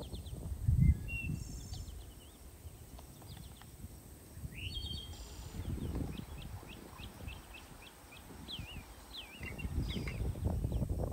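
Wind buffeting the microphone in gusts, with small birds chirping and calling many times over it; a single dull thump about a second in.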